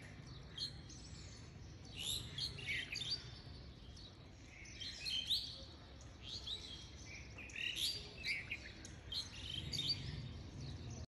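Small birds chirping: a scattered run of short high chirps and quick rising whistles.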